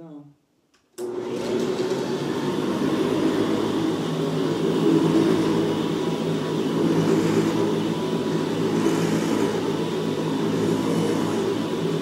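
Hoover Convertible upright vacuum cleaner switched on about a second in and running over carpet: a steady motor sound with several steady tones, with a soft swell every couple of seconds as it is pushed back and forth. It runs pretty loud because of its worn brush roll, which the owner means to replace.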